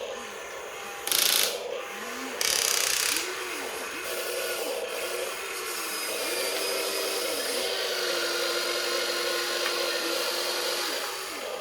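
Remote-control excavator motors whining as the machine is worked, the tone repeatedly rising, holding and dropping as the controls are moved, over a steady mechanical rattle. Two short, louder rushing bursts come about a second in and again about two and a half seconds in.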